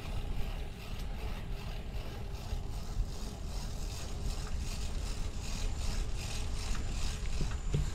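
Wind rumbling on the microphone while riding a bicycle, with light rattling from the bike over the path.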